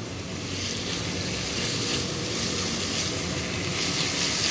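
Chopped onion and tomato sizzling in hot oil in a non-stick pan while being stirred with a spatula, a steady hiss that grows a little louder about a second and a half in. The tomatoes are being sautéed until soft.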